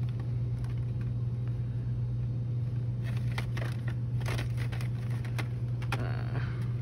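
Steady low hum throughout, with a few scattered light clicks and crinkles, mostly in the second half, of plastic toothbrush packages being handled.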